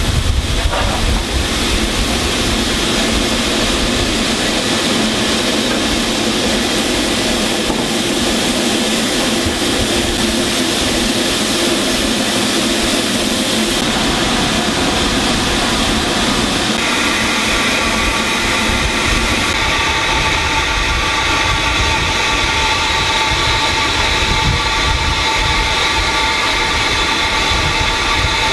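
A steam locomotive standing with steam hissing steadily, with no exhaust beats. Past the halfway point the sound changes and a steady hum of several tones joins the hiss.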